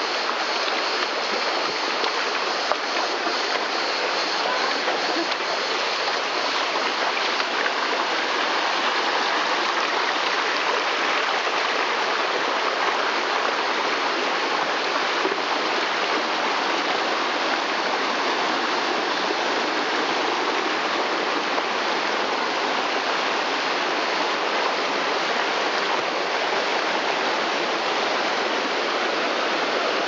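Shallow mountain stream rushing and cascading over rocks close by, a steady, unbroken rush of water.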